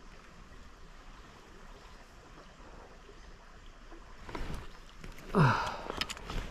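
Stream water flowing steadily. About five seconds in, a person gives a short vocal call that falls in pitch, followed by a few sharp clicks.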